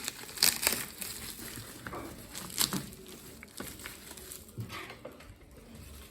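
Parcel packaging being handled and opened by hand: irregular crackles, taps and rustles, loudest in the first three seconds.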